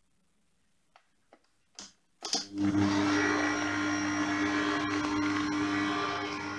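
A few faint clicks, then about two seconds in a stand mixer's motor starts up and runs steadily with an even hum, its kneading hook mixing flour, egg and water into a yeast dough.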